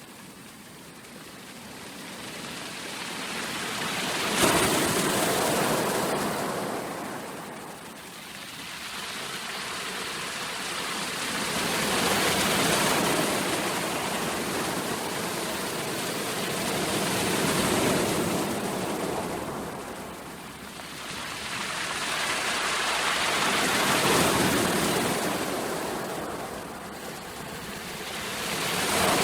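Sea waves washing onto a shore, the surf swelling and falling back in slow surges, about five in all, with one sharp crash about four seconds in.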